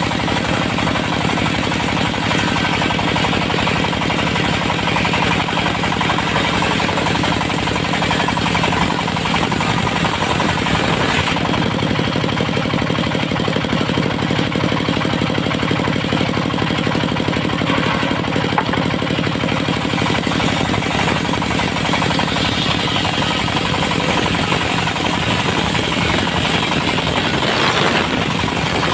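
Portable engine-driven circular sawmill running steadily, with the engine's rapid knock under the whine of the saw blade as it cuts through hard, dry teak. The blade noise grows harsher for several seconds near the end.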